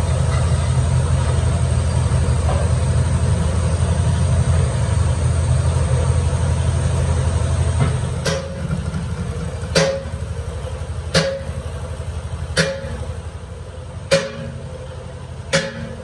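Metal lathe turning a large steel disc as the tool cuts, with a loud, steady low hum from the drive. About halfway through the hum drops and a sharp metallic click with a short ring begins, repeating about every second and a half.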